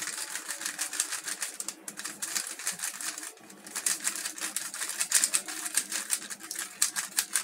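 3x3 Rubik's-type cube being turned fast in a repeated two-layer rotation, its plastic layers clicking rapidly. There is a short pause about three seconds in.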